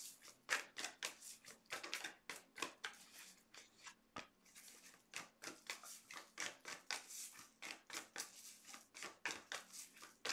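A thick deck of tarot cards being shuffled overhand between the hands: a soft run of quick card flicks and slaps, about three or four a second.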